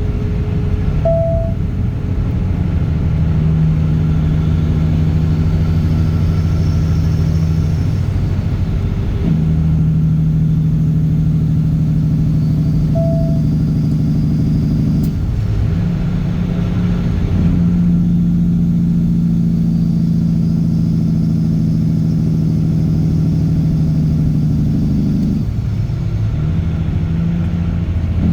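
Straight-piped Caterpillar C15 ACERT diesel truck engine running under way, a steady deep drone that breaks off and resettles in pitch several times, as with gear changes. Two short beeps sound, about a second in and again near the middle.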